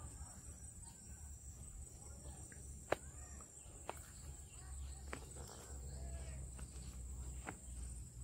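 Faint outdoor ambience: a steady, high insect drone over a low rumble, with a few sharp, isolated clicks about a second apart in the middle.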